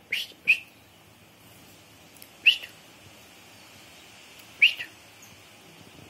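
Short, sharp high chirps: two in quick succession, then single ones about two seconds apart, each dipping slightly in pitch, over a steady faint hiss.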